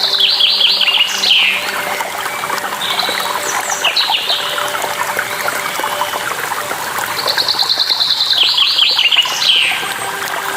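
Songbird singing short trilled phrases, three times, over the steady rush of a waterfall.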